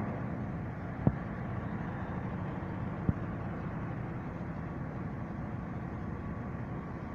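Heavy vehicle engine running steadily, with two sharp knocks about one and three seconds in.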